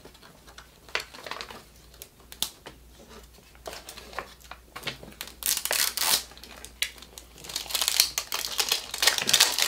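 Crinkly toy packaging being unwrapped and handled by hand. Scattered crackles at first, then longer spells of crinkling and rustling in the second half.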